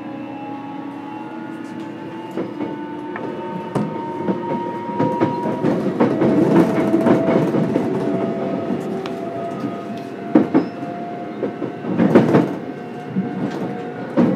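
JR Kyushu 813 series electric train heard from inside its motor car: the traction motor whine, several tones together, rises steadily in pitch as the train gathers speed. The wheel rumble grows louder from about five seconds in, with clicks and knocks over rail joints, a heavier pair near the end.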